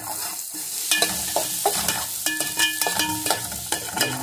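Chopped onion sizzling in hot butter and garlic in a metal pan, stirred with a metal spoon that clicks and scrapes against the pan.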